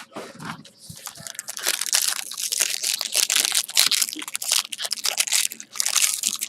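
Trading card packaging crinkled and crumpled by hand. A dense run of crackles gets much louder about a second and a half in.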